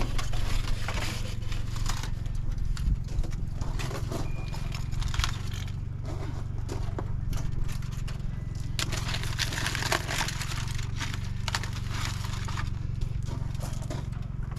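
Irregular scraping, rustling and light crackling as ribs and a metal rack are handled at a smoker, over a steady low hum.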